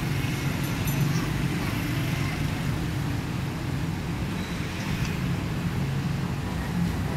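Steady low rumble of street traffic and engines.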